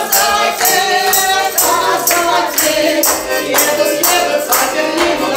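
Live singing with an accordion playing along, and a tambourine struck in a steady beat about twice a second.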